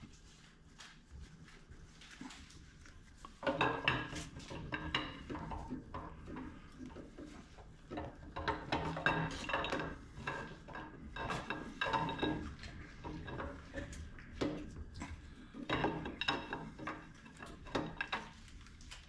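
Steel camshaft being drawn out of an engine block by hand, its lobes and journals clinking and scraping against the cam bearings in irregular clusters of short metallic rings, busier from about three seconds in.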